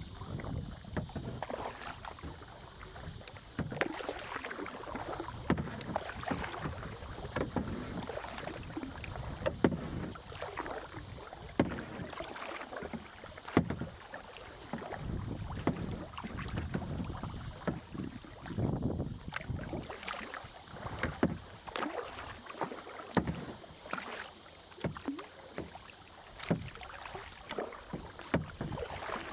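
Kayak paddle strokes splashing and dripping in lake water at an uneven pace, with wind rumbling on the microphone.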